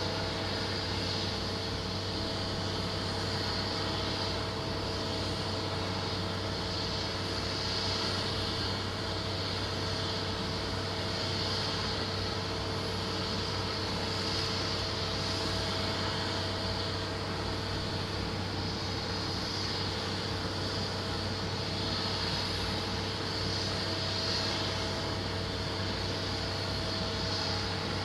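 Steady drone of jet aircraft running, even and unchanging, with a low hum and a couple of steady mid-pitched tones.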